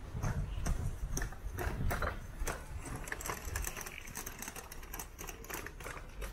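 City street sounds: rapid, irregular clicks and taps over a low rumble that fades about four seconds in.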